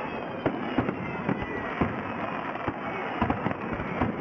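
Fireworks display: aerial shells bursting in an irregular run of sharp bangs and pops, about three a second, over a steady background hiss. A faint falling tone sounds in the first two seconds.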